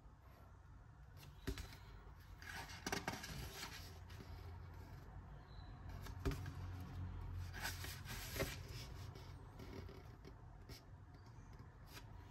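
Paper pages of a softcover sketchbook being turned by hand: soft rustles and small paper clicks, with louder page turns about three seconds in and again around eight seconds in, over a low steady hum.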